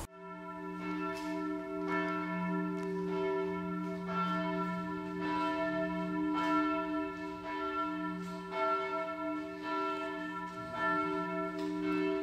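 Church bells ringing, their strikes coming under a second apart and blending into a steady, sustained ring.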